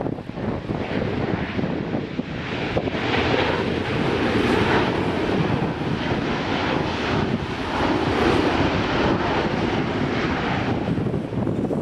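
Jet aircraft engines, a broad rushing noise that swells a couple of seconds in and eases off near the end.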